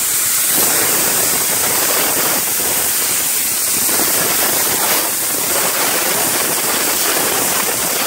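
Compressed air rushing steadily out of a concrete mixer truck's coiled water hose, a loud even hiss. The water has drained out and nothing but air is coming through, the sign that the line is clear.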